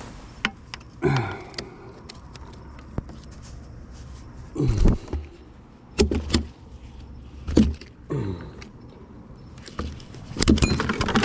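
A freshly caught mangrove snapper being handled on a wet wooden dock: irregular slaps and knocks, several with a short falling squeak, and a denser clatter near the end.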